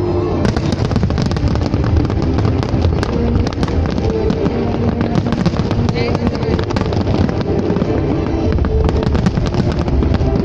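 Large fireworks display: a dense, irregular barrage of sharp bangs and crackles over continuous low booming from the shell bursts.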